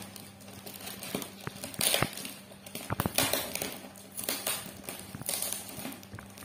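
Clear plastic wrapping crinkling and rustling in irregular bursts, with sharp crackles, as hands pull and squeeze it around a new toy.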